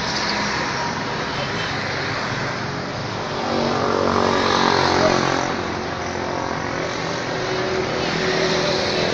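Street noise with a motor vehicle's engine passing close, swelling and fading, loudest about five seconds in, over background voices.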